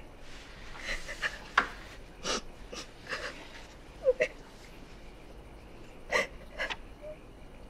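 A young woman sobbing: a string of short, ragged crying breaths and sniffles, with a brief whimper about four seconds in.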